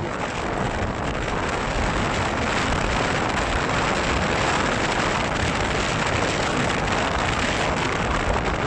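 Steady rushing noise of wind and tyres picked up by a phone microphone in a moving car.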